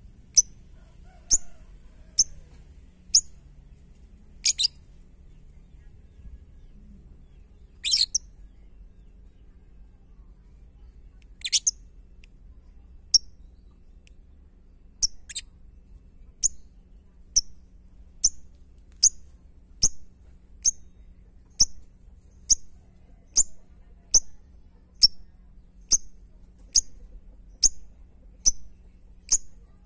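Lovebird giving its 'ngetik' (typing) call: short, sharp single chirps. They come irregularly, with three longer, drawn-out calls in the first twelve seconds, then settle into a steady beat of just over one chirp a second. It is the call keepers play to set other lovebirds calling.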